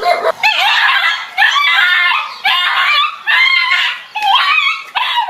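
High-pitched cries repeated in about six short bursts, the pitch wavering up and down within each.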